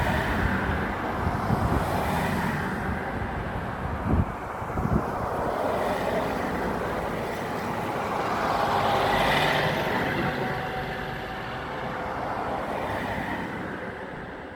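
Road traffic going by, one vehicle swelling past and fading away about nine to ten seconds in, with two short low thumps around four and five seconds in.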